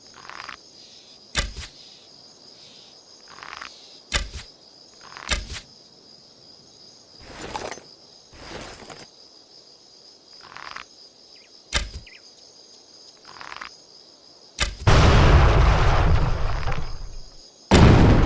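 Sound-effect bow and arrow shots: sharp snaps and arrow swishes every second or two over a steady chirring of insects. Near the end come two loud explosions about three seconds apart, each dying away over a couple of seconds.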